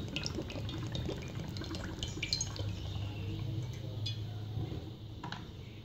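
Cooking oil poured from a plastic bottle into a nonstick pan, a soft stream thinning to a trickle with scattered small drip ticks, over a low steady hum.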